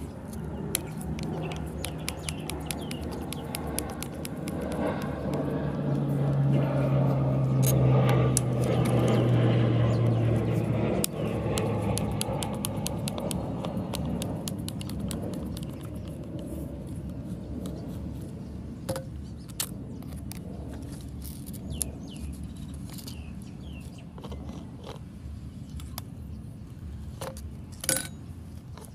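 Small clicks and scrapes of a screwdriver and metal parts as an angle grinder's gear head is unscrewed and taken off, with birds chirping. A low engine-like hum swells and then stops about eleven seconds in.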